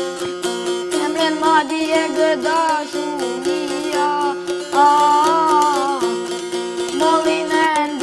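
A çifteli, the two-stringed Albanian long-necked lute, strummed in a quick, even rhythm with a steady drone note under it, accompanying a boy singing an Albanian folk song. The voice's melody bends up and down and holds one long, loud note about five seconds in.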